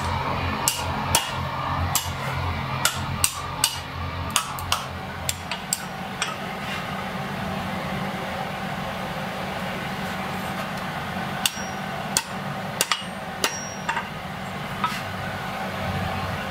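Hand hammer striking red-hot iron held in tongs on the anvil: a run of sharp blows about two a second for the first five seconds or so, then a few scattered lighter metal clinks, over a steady low hum.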